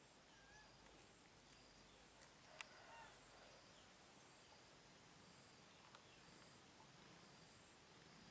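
Near silence: faint outdoor ambience with a steady high insect drone and soft chirps repeating about once a second, and a single sharp click about two and a half seconds in.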